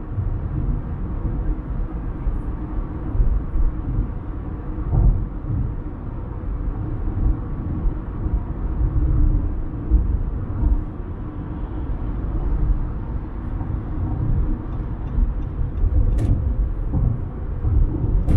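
Steady low rumble of a car driving at highway speed, road and tyre noise heard from inside the cabin.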